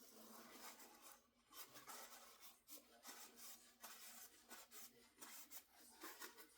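Near silence with faint, intermittent scratching and rubbing handling sounds.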